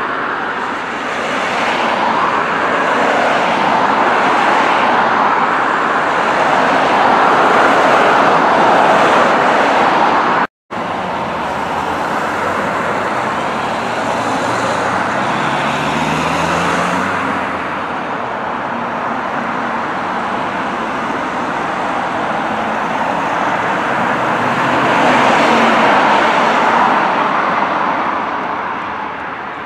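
Jet airliner engines running across the airfield as a steady roar that swells and fades, broken by a sudden cut about ten seconds in. Around fifteen seconds in, a low engine note rises briefly beneath it.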